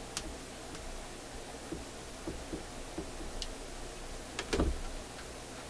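Scattered light metallic clicks and taps as a spring is worked into place with a tool inside a Marconi record player's mechanism, the loudest cluster about four and a half seconds in, over a steady faint hiss.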